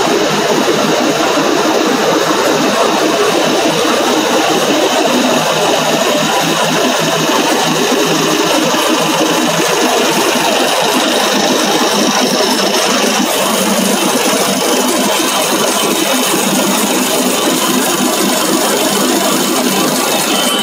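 Plastic granule extrusion line running, with its strand pelletizer chopping the cooled plastic strands into granules: a loud, steady, dense machine noise that does not let up.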